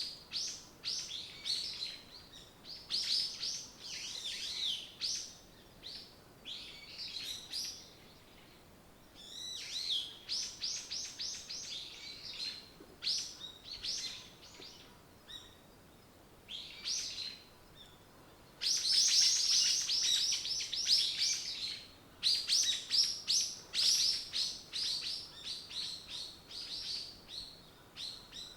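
Songbirds chirping and singing in a string of quick, high trilled phrases with short pauses between them; the densest, loudest stretch of song comes about two-thirds of the way through.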